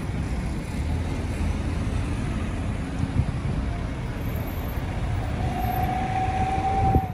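Steady low rumble of a vehicle in motion, with a faint steady whine joining in about five seconds in.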